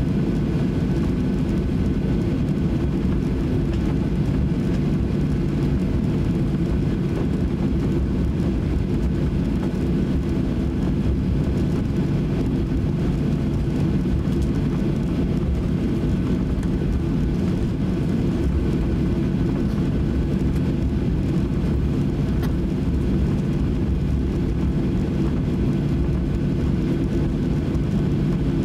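Steady low cabin rumble inside a Boeing 737-800 taxiing, its CFM56 jet engines at taxi power, with a faint steady whine above the rumble.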